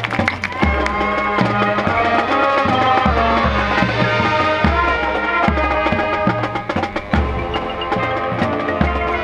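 High school marching band playing its field show: sustained wind chords over a low bass line that moves note by note, with percussion ticking through it.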